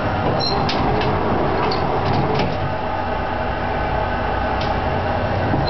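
Kotai 2002 clamshell die cutter running under power: a steady mechanical rumble and hum from its motor and drive, with a few light clicks.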